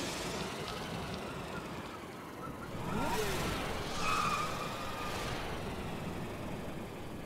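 Cartoon sound effect of a small truck's engine as it drives off. A rising sweep comes about three seconds in, and a short higher tone follows about a second later.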